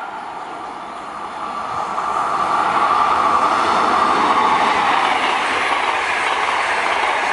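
Electric locomotive-hauled passenger train passing at speed: the rushing rolling noise of wheels on rail grows louder as the locomotive arrives about two seconds in, then holds steady as the coaches go by.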